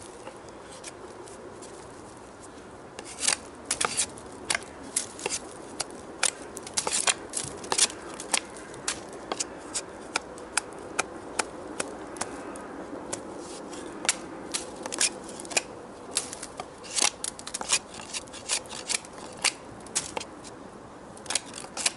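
A thick kukri blade whittling a wooden stick: irregular sharp snicks of the edge biting and shaving the wood, coming roughly twice a second from about three seconds in.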